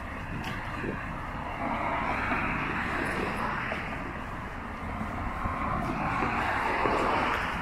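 Cars passing on the adjacent road, their tyre and engine noise swelling and fading away twice.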